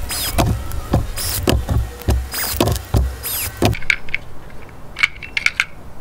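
A cordless drill driver, its clutch set to 3, driving screws in four short bursts about a second apart. The motor whine falls away after each burst. Near the end there are a few light clicks of handling.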